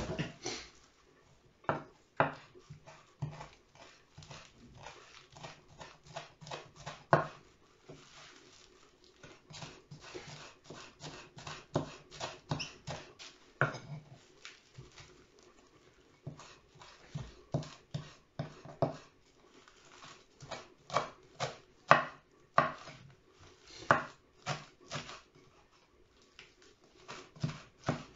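Chef's knife chopping fresh parsley on a wooden cutting board: irregular knocks of the blade on the board, coming in quick runs of strokes with short pauses between.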